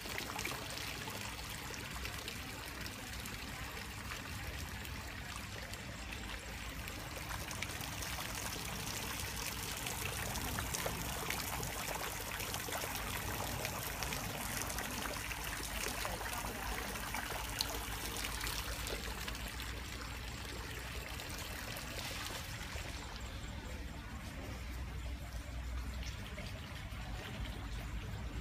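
Water trickling and splashing steadily into a garden pond, growing fainter near the end.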